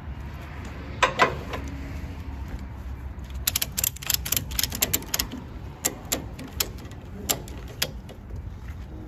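Ratchet strap being cranked tight to tie down a skid steer: two sharp clacks about a second in, then a quick run of ratchet clicks and a few more single clicks, over a steady low rumble.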